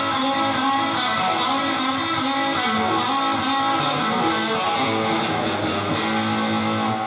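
Electric guitar played through an overdriven amp with the Lace Sensor dually's Emerald coil selected on its own, a run of notes and chords ending on a held note.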